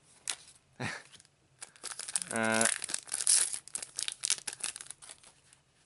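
Foil booster-pack wrappers crinkling and tearing as trading-card packs are opened and handled, in quick irregular bursts. There is a brief hummed voice sound about two and a half seconds in.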